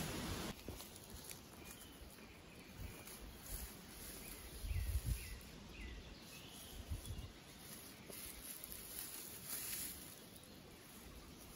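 A shovel digging into soil for the first half second, then quiet outdoor ambience with a bird giving a few short chirps and some low thumps.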